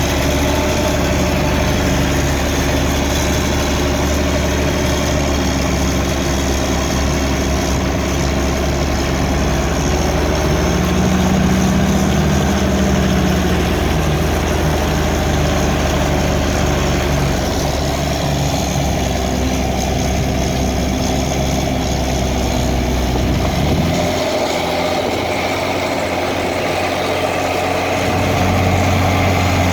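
Case 1694 tractor's diesel engine running steadily while ploughing. About three quarters of the way through, the deep hum changes and drops away for a few seconds, then a low note returns near the end.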